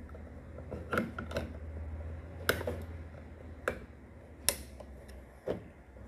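Sharp plastic clicks and knocks, about six spread unevenly, as a screwdriver prises at the locking clip of a condenser tumble dryer's drain pump housing to open it to the impeller. A steady low hum runs underneath.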